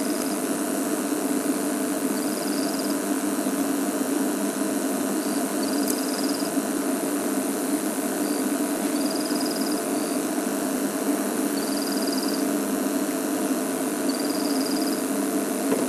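A game-drive vehicle's engine idling steadily. Short high chirps repeat every couple of seconds over it.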